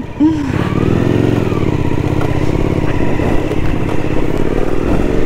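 Motorcycle engine running while riding along a road. The revs rise and fall once near the start, then hold steady under a rush of road and wind noise.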